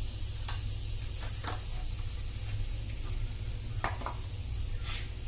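Hot oil sizzling in an aluminium kadai with cumin seeds and turmeric powder, a steady hiss broken by a few sharp pops and crackles.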